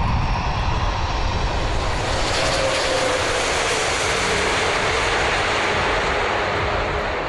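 Airbus A380 airliner passing low on landing approach: a steady rush of jet engine noise, with a faint whine that drifts down in pitch about halfway through.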